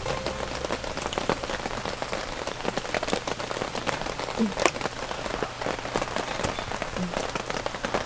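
Rain falling steadily in a brief passing shower, with many separate drops hitting close by and one sharper drop hit about four and a half seconds in.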